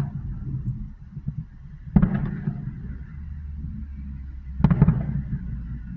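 Fireworks bursting overhead: two loud bangs, about two seconds in and near the five-second mark, each trailing off in a rumbling echo, with the rumble of an earlier burst fading at the start.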